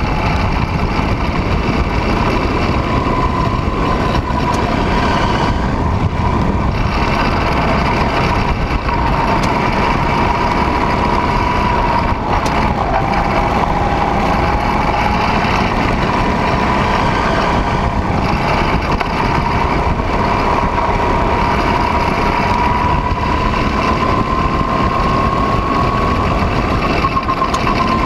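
Go-kart running at speed around a track. Its high note holds fairly steady, sags briefly about twelve seconds in and climbs gradually near the end, over heavy wind rumble on the onboard microphone.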